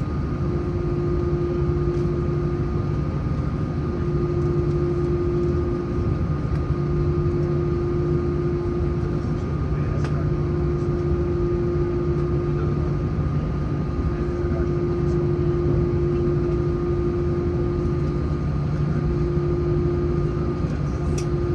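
Steady drone inside an Airbus A330-900neo's cabin on the ground after landing: engine and air-system noise with a few steady hum tones held level throughout.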